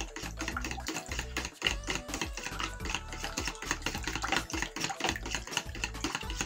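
Liquid batter of buttermilk, yeast and egg being beaten briskly with a utensil in a plastic bowl: rapid clicking of the utensil against the bowl, several strokes a second, with wet splashing.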